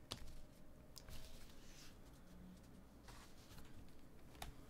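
Near silence with a few faint clicks and soft rustles of trading cards being handled and set down on the table.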